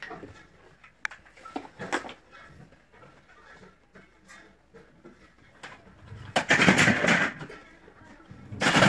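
Milk glugging out of a plastic gallon jug as it is poured into a bowl of cereal, loudest in two gurgling spells near the end, after a few small knocks from handling the jug.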